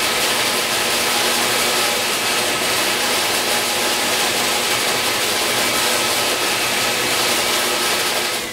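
Reliant 6x48-inch belt sander and a shop vacuum running together at a steady pitch while a fretboard in a radius jig is rocked across the 80-grit belt. Both stop near the end.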